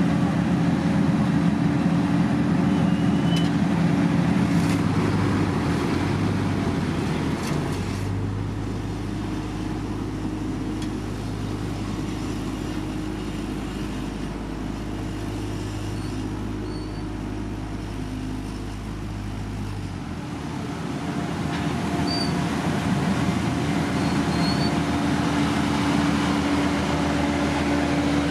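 Engines of heavy road-paving machinery running steadily. From about 8 to 20 seconds in the noise drops a little and a deeper steady hum takes over, then the louder engine noise comes back.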